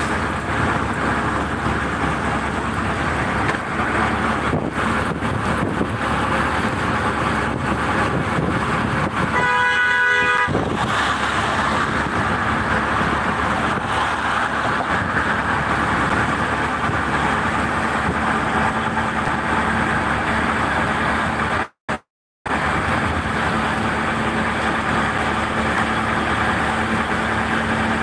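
Steady engine and road noise of an auto-rickshaw, heard from inside while it drives at speed, with wind rushing past. About ten seconds in, a vehicle horn honks once for about a second. The sound cuts out completely for a moment about two-thirds of the way through.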